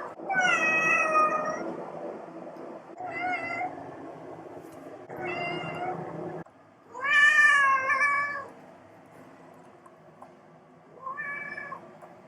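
Domestic cat meowing five times in a row, each call a drawn-out, falling meow, the loudest and longest about seven seconds in: begging meows of a cat asking to be showered.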